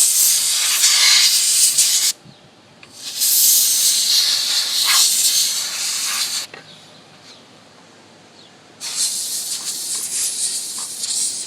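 Air from a hand-pumped garden pump hissing out in three blasts as it blows dust off a computer motherboard. The first two blasts last about two and three seconds; the third starts near the end and carries on.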